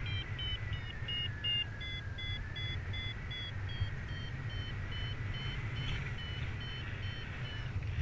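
Paragliding variometer beeping in quick, evenly spaced short beeps, about two to three a second, over wind rushing on the microphone: the vario's climb tone, signalling that the glider is rising in lift while it turns circles. The beeps drop slightly in pitch about halfway through and stop just before the end.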